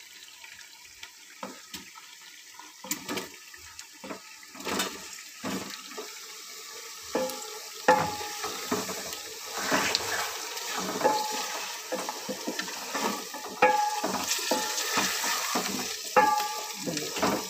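Raw chicken pieces sizzling as they go into onions frying in hot ghee in a metal pot, with a wooden spatula stirring and knocking against the pot.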